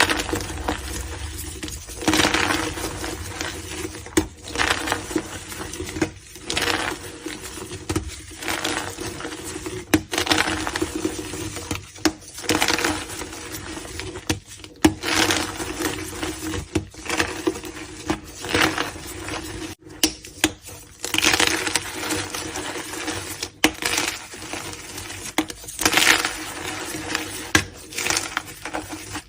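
Gym chalk being crushed, with crumbly crunches that come again every second or two. A steady low hum runs underneath.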